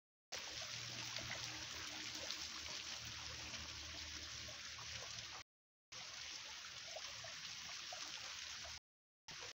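Steady rush of flowing water, a stream or channel, which cuts out abruptly to silence twice for a moment.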